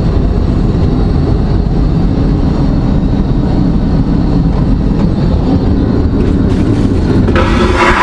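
Loud, steady rumble of an airliner in flight, heard from inside its lavatory. About seven seconds in, a brighter rushing noise with a steady high tone comes in over it.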